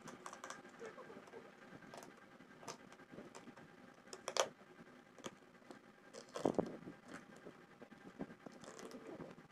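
Hands handling a tape-wrapped cardboard parcel: scattered scratches, crinkles and taps of tape and cardboard, with louder rustles about four and a half and six and a half seconds in.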